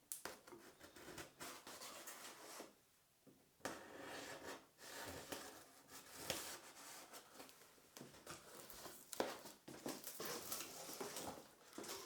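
A cardboard box and its packaging being handled and opened: faint scraping, rustling and irregular clicks, with short pauses.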